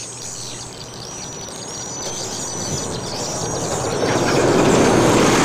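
Swiftlets twittering: a steady stream of short, thin, high chirps. Underneath, a rushing noise swells through the second half, becomes the loudest sound, and cuts off suddenly at the end.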